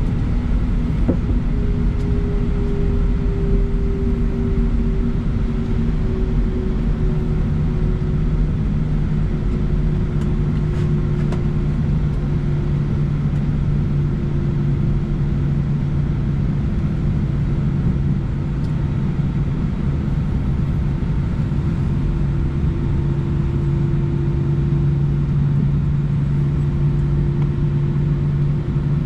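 Airbus A319's jet engines at takeoff power, heard inside the cabin as a loud, steady roar with a low engine drone. A heavy rumble underneath eases about six seconds in, while a deeper engine tone grows stronger.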